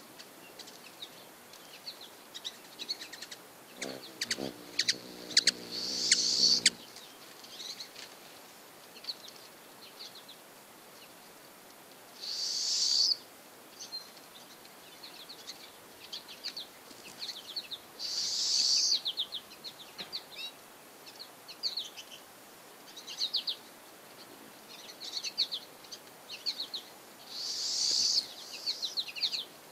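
Male ruby-throated hummingbird's wings whirring and humming as it hovers close by, in four loud bursts of about a second each. Quick high bird chirps are heard all through.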